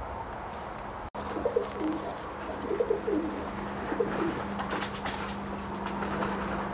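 Buff Orpington hens clucking softly, starting about a second in: a run of short, low, bending calls.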